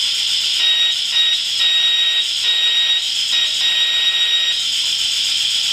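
Velleman steam train sound generator kit playing through a small bare loudspeaker: a steady steam hiss, with the kit's electronic whistle sounding as one high steady tone from about half a second in to about four and a half seconds, breaking off briefly a few times while its button is held down.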